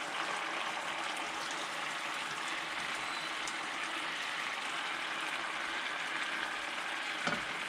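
Squid adobo (squid in Sprite, vinegar and soy sauce) simmering in the pan, a steady bubbling sizzle, with a light knock near the end.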